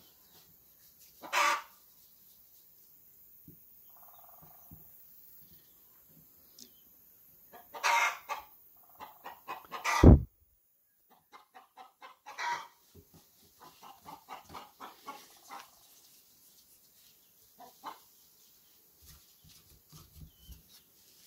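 Chickens clucking in short scattered runs of calls, with a single sharp thump about ten seconds in that is the loudest sound.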